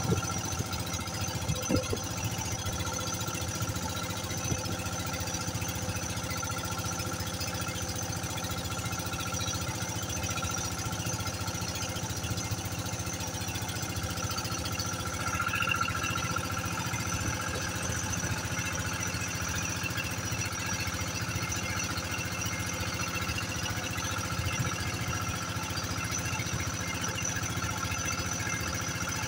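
Motor of a bangka outrigger boat running under way at a steady, unchanging pitch.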